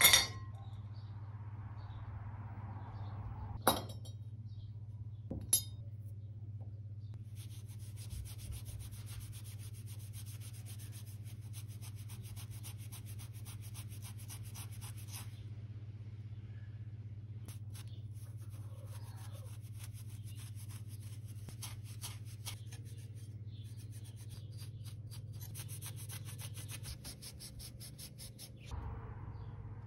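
Maroon abrasive pad scrubbing corroded brass statue parts by hand: a fast, fine rasping rub in two long stretches. A few sharp clinks of the small metal parts come before it, the first right at the start, over a steady low hum.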